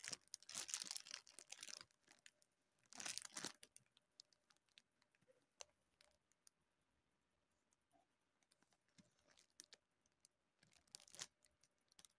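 Crinkling and rustling in three short bursts, the first right at the start, one about three seconds in and one near the end, with scattered light clicks between.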